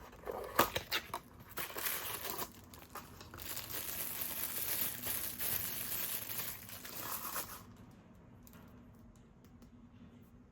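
Plastic packaging crinkling and tearing as it is handled: a few sharp clicks in the first second or two, then several seconds of steady tearing noise that stops suddenly about three-quarters of the way through.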